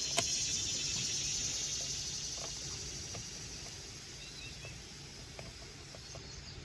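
High, steady chirping trill of insects, likely crickets, fading over the first few seconds, with one sharp click just after the start and a few faint ticks.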